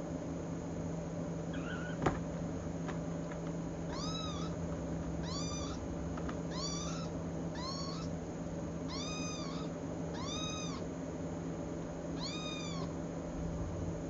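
Young kitten mewing: seven short, high-pitched mews, each rising and falling, at uneven intervals of one to two seconds, starting about four seconds in. A single sharp click comes about two seconds in, over a steady low hum.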